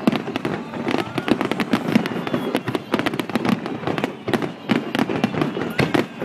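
Fireworks display: aerial shells bursting in a dense, unbroken barrage of bangs and crackles, many a second.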